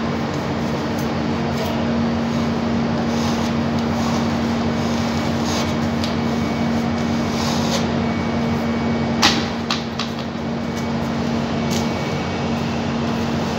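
Steady mechanical hum with a low, even tone running under it, and a single sharp click about nine seconds in, followed by two fainter ones.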